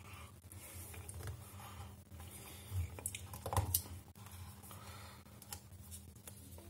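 Fingers scratching and peeling at a seal sticker on a cardboard phone box, with small irregular clicks, scratches and rustles and a couple of louder crackles about midway.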